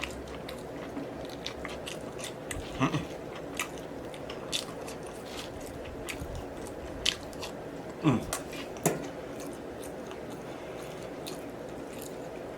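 Close-up mouth sounds of a person biting and chewing a barbecue rib sandwich: scattered smacking clicks, with louder bursts about three seconds and eight to nine seconds in.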